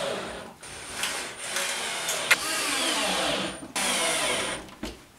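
Electric drill driving screws in several short runs that stop and start, its motor whine rising and falling, with one sharp click partway through.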